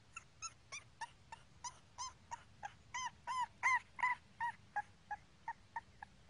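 English bulldog puppy crying in a run of short, high-pitched squeaks, about three a second, loudest a little past the middle.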